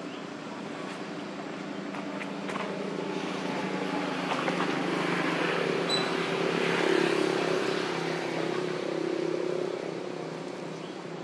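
A motor vehicle's engine running as it passes, growing louder to a peak about seven seconds in and then fading.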